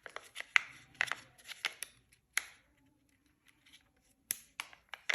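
Kinder Joy plastic egg and its foil seal being handled and opened: a run of sharp crinkles and clicks, with a quieter pause of a second or so in the middle.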